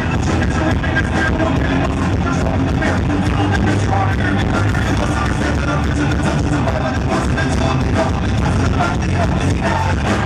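Live rock band music playing loudly and without a break.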